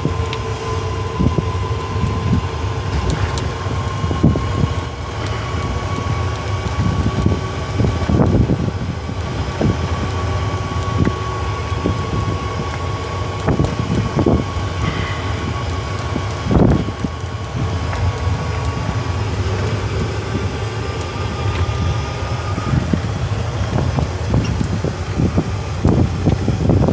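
Old, beat-up electric utility cart driving along at low speed, heard from inside the cab: steady road rumble and wind noise with a thin steady whine, and frequent knocks and rattles from the body.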